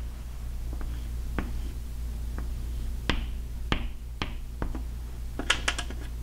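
Chalk tapping and scratching on a chalkboard while Arabic script is written by hand: irregular sharp taps and short strokes, with a quick run of taps about five and a half seconds in. A steady low hum sits underneath.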